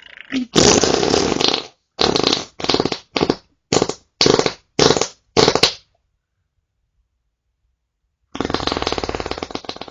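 Fart sounds played one after another. A long fart comes first, then seven short ones in quick succession, then a gap of dead silence of about two and a half seconds, then another long, fluttering fart.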